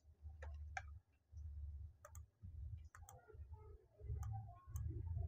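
Scattered sharp clicks from a computer keyboard and mouse, about eight separate clicks spread out, over a faint low hum.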